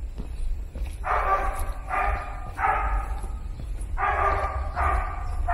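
A dog barking five times, in a run of three and then two.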